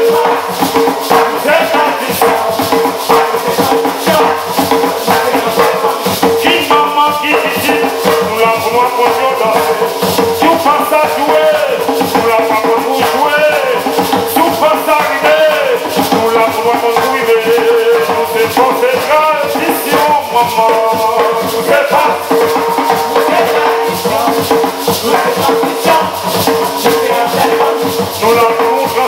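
Live gwoka: ka hand drums beat a fast, steady rhythm under a chacha shaker, while a group of singers sings with the drums.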